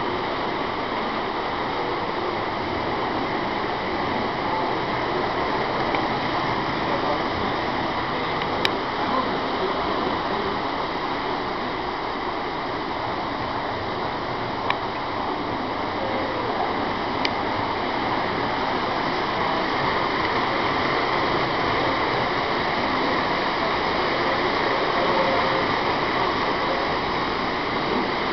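Steady whirring rumble of model trains running on a three-rail layout, mixed with indistinct room murmur. There are a few faint clicks about a third and halfway through.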